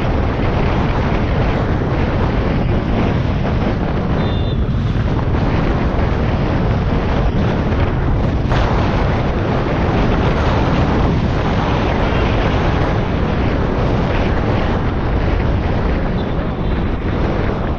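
Wind rushing over the microphone of a GoPro mounted on a moving motorcycle: a loud, steady noise, with the motorcycle's running and road noise mixed in beneath it.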